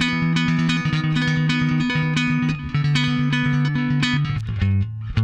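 Fender Player II Precision Bass played through a bass amp: a fast riff of evenly picked repeated notes, moving to lower notes with short breaks near the end.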